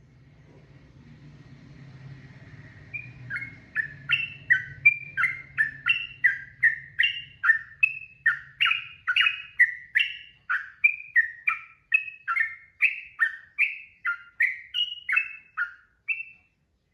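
Sooty-headed bulbul (trucukan) singing a long, rapid run of short slurred notes, about two or three a second, that starts a few seconds in and stops shortly before the end.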